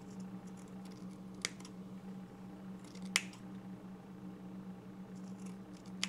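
Scissors snipping cotton wick at the coils of a rebuildable dripping atomizer: three sharp snips, the loudest about three seconds in, with faint small clicks between.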